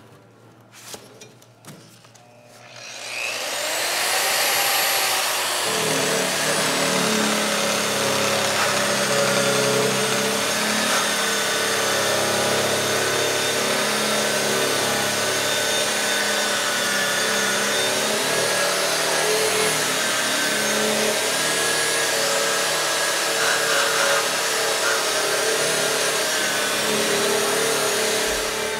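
Electric polisher fitted with a red abrasive drum wheel, spinning up with a rising whine about three seconds in, then grinding steadily as it strips layers of old paint from a refrigeration-unit shell.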